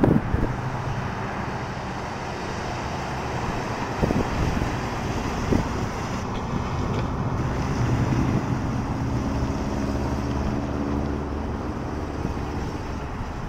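1968 Chevrolet El Camino driving slowly past, its engine running steadily, with wind noise on the microphone.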